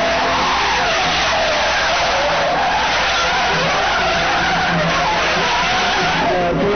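Sedan's tyres screeching continuously as the car drifts sideways, with the engine heard underneath.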